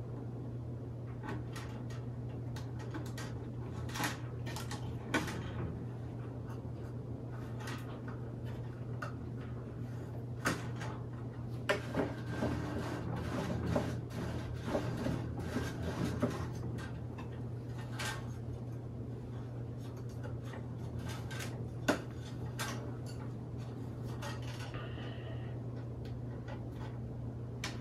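Frame wire being threaded and pulled through the holes of a wooden beehive frame: scattered light clicks and metallic ticks of wire and tools on wood, busiest around the middle, over a steady low hum.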